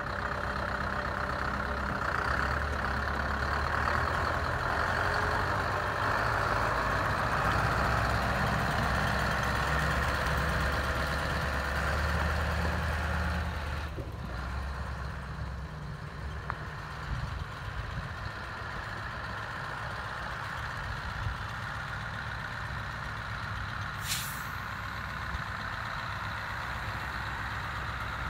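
Scania R164 tipper truck's 16-litre V8 diesel engine running as the truck drives slowly around. The engine works harder for the first half, then eases off about halfway through. Near the end there is a brief hiss of air.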